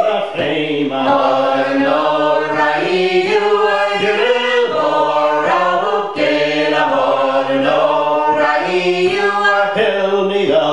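Unaccompanied men's and women's voices singing together a Scottish Gaelic song with a vocable refrain, in short phrases with held notes.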